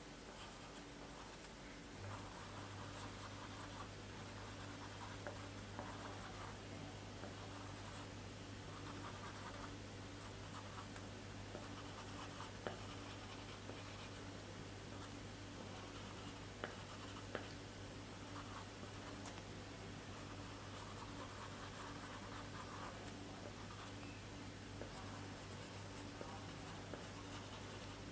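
A drawing tool scratching and rubbing on paper in repeated shading strokes, with a few short sharp ticks.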